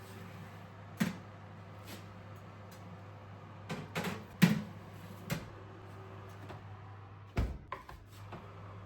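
Several short, sharp knocks and clicks of household objects being handled, loudest about halfway through and with another cluster near the end, over a steady low hum.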